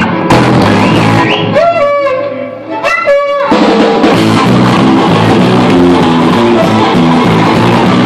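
Live band music: bowed violin, electric guitar and drum kit playing together. A little before the two-second mark the bass and drums drop back, leaving a sliding, pitch-bending line, and the full band comes back in about a second and a half later.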